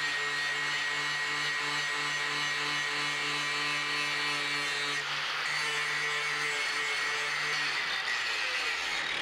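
Angle grinder with a grinding wheel running against a new carbon steel plate, taking off the mill scale: a steady motor whine over a harsh grinding hiss. Near the end the whine drops in pitch as the grinder spins down.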